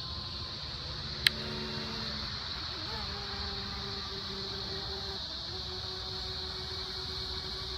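Thin whine of the Horizon Hobby X-Vert VTOL's twin electric motors and propellers in forward flight, its pitch shifting with throttle a few seconds in, over a steady rumble of wind on the microphone and a steady high-pitched drone. One sharp click about a second in.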